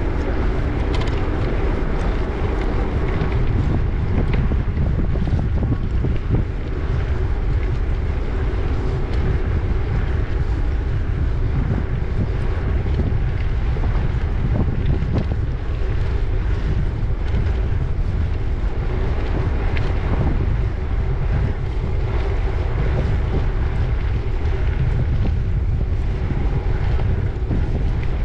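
Steady wind noise buffeting the microphone of a camera riding on a moving bicycle.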